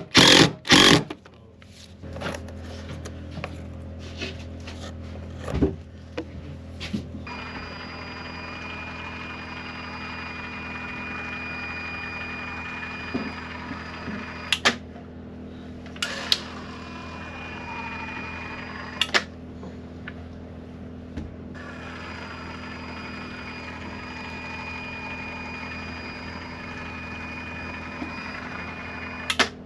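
Cordless electric caulking gun's motor whining steadily in three long runs as it drives the plunger, pressing sealant out of the tube, with a few short clicks in the first seconds. A low steady generator hum runs underneath.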